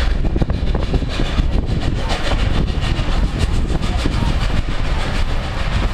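Narrow-gauge train passenger coach running along the track: a loud, steady rumble of wheels on rail with a constant patter of clicks and rattles, heard from an open coach window.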